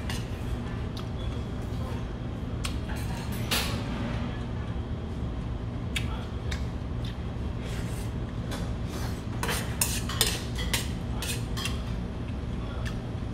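Metal chopsticks clicking and clinking against a metal noodle bowl as noodles are stirred and picked up: scattered sharp clicks, several in quick succession a little after the middle, over a steady low room hum.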